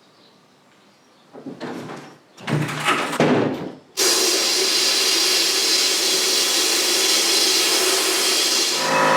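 A few metal clanks and knocks, then a sudden loud, steady hiss of a jet of air or water spray. Just before the end a motor starts up with a steady hum.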